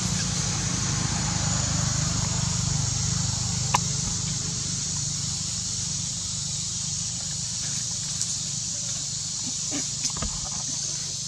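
Outdoor ambience: a steady low hum that fades over the first half, under a steady high hiss, with a few short clicks.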